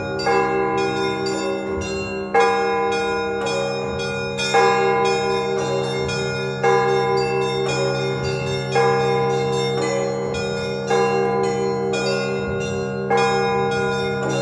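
Russian Orthodox church bells rung together in a rhythmic peal calling to the service: a heavy accented stroke about every two seconds over a quick, steady pattern of lighter bells, with the deeper bells ringing on underneath.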